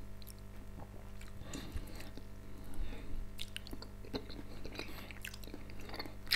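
Quiet chewing of a mouthful of boiled meat dumplings (pelmeni), with soft wet mouth sounds and a few light clicks of a fork on the plate.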